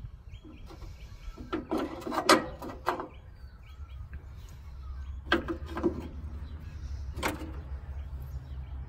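Sharp metallic clinks and knocks of hand tools: a quick cluster about two seconds in, then single clinks spaced a second or two apart, while the valve clearances on the J15's rocker gear are being set. Faint bird chirps and a steady low rumble underneath.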